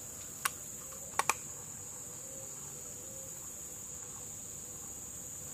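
Steady, high-pitched drone of insects calling in summer vegetation. Three sharp clicks cut through it, one about half a second in and two in quick succession just after a second.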